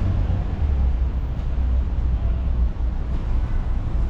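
Street traffic: a steady low rumble of passing vehicles with road noise.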